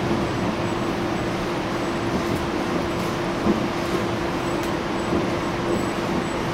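Steady interior noise of a CityRail OSCAR (H-set) electric double-deck train carriage: an even rumble with a constant low hum under it.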